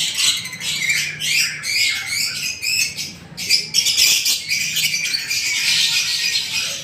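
A group of young lovebirds chirping and squawking, with many rapid, shrill calls overlapping with no pause.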